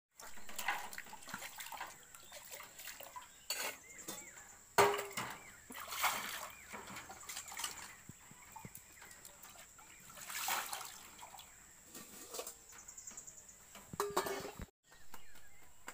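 Stainless steel dishes being washed by hand in a basin of water: water sloshing and splashing, with steel bowls and plates clinking together. There is a sharp ringing clang about five seconds in and another near the end.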